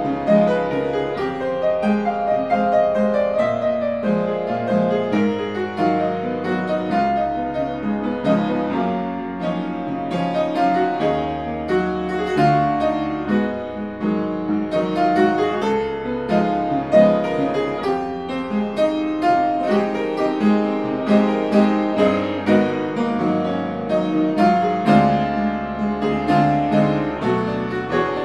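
Solo upright piano playing a jequibau, a Brazilian samba in 5/4 time, with a moving bass line under chords and melody.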